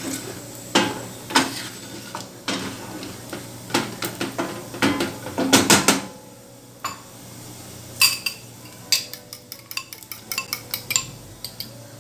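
Wooden spoon stirring bacon pieces in a stainless steel frying pan, knocking and scraping against the pan in irregular clatters, with a quick run of light clicks in the later part.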